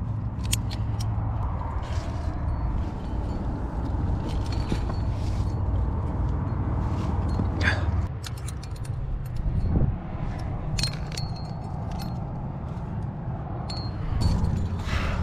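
A trad climbing rack of carabiners and cams clinking and jangling on a harness as the climber moves, with scattered clinks throughout. Underneath runs a steady low rumble of wind buffeting the microphone.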